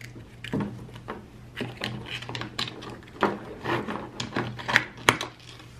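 Small clicks, taps and rustles from handling a hard-shell suitcase's pull-out purse clip as a purse strap is hooked onto it and the clip is pushed back against the case.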